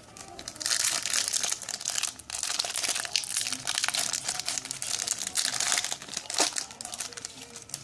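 Crinkling and crackling of a trading-card pack wrapper being torn open and handled, with a brief pause a little after two seconds.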